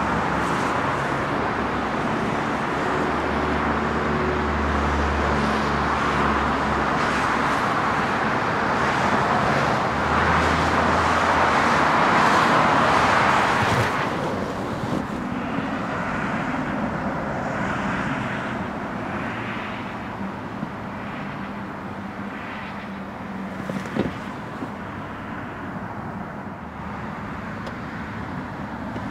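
The 2004 Cadillac CTS-V's 5.7-litre LS6 V8 idling steadily just after start-up. It drops a little in level about halfway through, and there is a single sharp click near the end.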